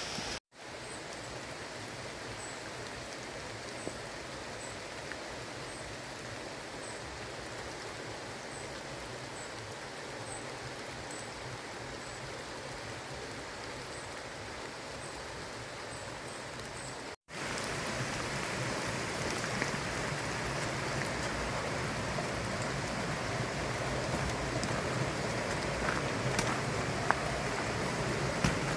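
Steady rain falling in woodland, a constant hiss with gusting wind, louder after a break about seventeen seconds in, with a few sharp drip ticks near the end.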